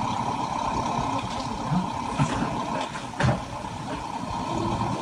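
Heavy diesel engine running steadily, with a few short knocks or clunks, the loudest about three seconds in.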